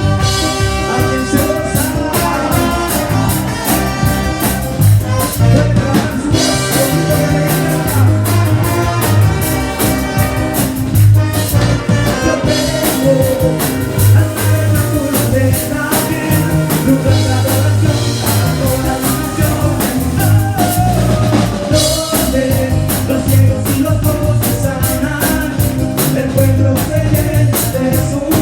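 Live worship band music with a drum kit keeping a steady beat and a sung melody over it.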